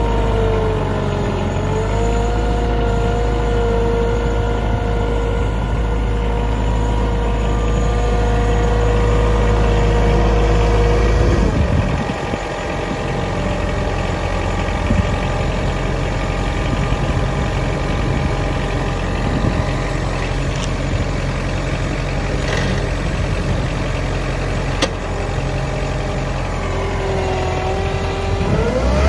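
Toro Groundsmaster 455D mower's four-cylinder diesel engine running steadily. A whine sits over it for about the first eleven seconds and stops suddenly, then comes back near the end and rises in pitch.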